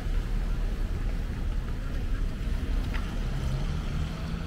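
City traffic on a rain-wet street: cars passing over wet pavement with a steady low rumble and hiss, and near the end an engine hum rising slightly in pitch as a car pulls away.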